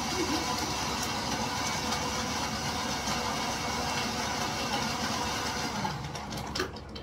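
A machine running steadily, then dying away about six seconds in.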